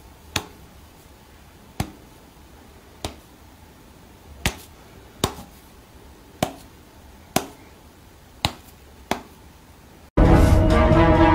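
Finger snaps: nine sharp snaps at uneven intervals of roughly a second, over faint room tone. Loud music cuts in abruptly near the end.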